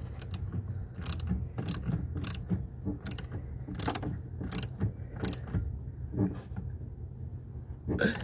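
Socket ratchet wrench clicking in short, uneven strokes, about one or two a second, as a terminal nut on a generator isolator solenoid is tightened down. A steady low hum runs underneath.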